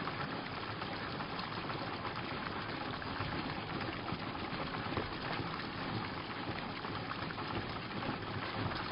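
Steady splash of water pouring from the discharge hose of a hand-cranked self-priming transfer pump onto open water, the pump being cranked continuously.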